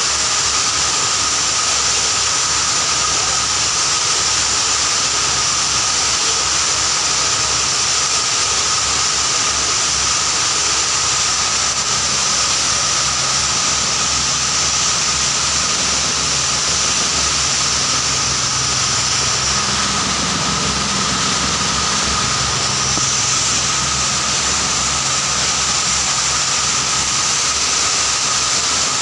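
Belt-driven shaker grinder (sugar pulverizer) running steadily while grinding sugar into powder. It makes a loud, even rush with a steady high whine.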